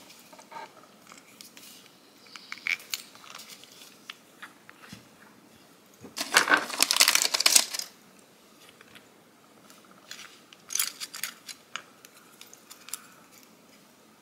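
Handling noise from a glass nail polish bottle and clear plastic swatch sticks: scattered clicks and taps, a dense clattering rattle lasting about two seconds in the middle, and another short run of clicks a few seconds later.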